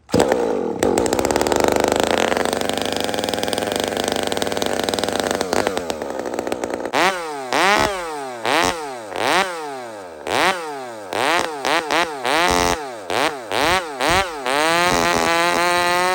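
Iron Horse big-bore 86cc Husqvarna 371 chainsaw with a different muffler, starting on one pull and running at high speed for about five seconds. From about seven seconds in it is revved up and down about a dozen times in quick blips, and near the end it is held at high speed.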